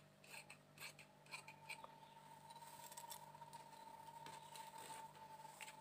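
Faint snips of large tailor's scissors cutting cotton fabric: several quick snips in the first couple of seconds, then softer rustling of the cloth being handled. A low steady hum and a thin steady high tone run underneath.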